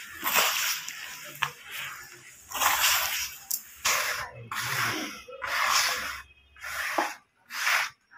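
Hands raking and stirring dry crushed yellow brick dust and crumbs in a tub: gritty rustling and crunching in repeated strokes, about one a second.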